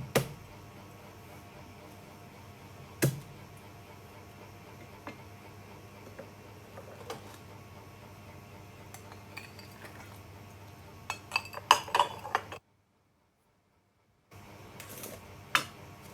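Cookware and utensils knocking and clinking: a few single sharp knocks spread out, then a quick run of clinks, and one more knock near the end. The sound drops out completely for a moment before that last knock.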